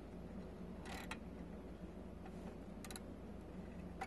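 A few faint metallic clicks and scrapes from a socket wrench on a long extension bar worked on a catalytic converter's flange bolt: a short scrape about a second in, then three quick ticks near the end. A steady low hum runs underneath.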